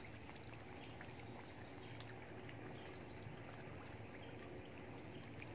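Faint pond water trickling and lapping, with scattered small plops and ticks at the surface where fish feed.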